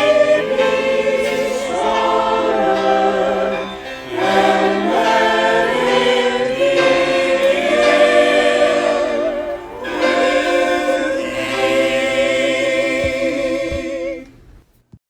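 Choir singing a hymn with accompaniment, with held notes and vibrato; the music fades out near the end and stops.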